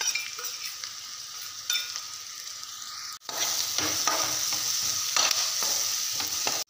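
Onions, garlic and green chillies frying in ghee in a metal kadhai, sizzling while a metal spatula stirs and scrapes through them. After a brief break about three seconds in, the sizzling comes back louder and steadier.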